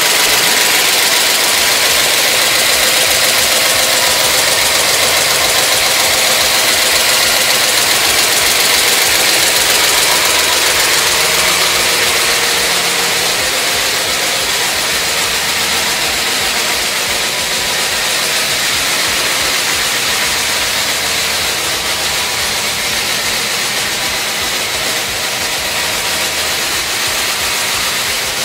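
Freshly rebuilt 383 Mopar big-block V8 running at a steady idle on an engine stand. It sounds a little fainter from about halfway through.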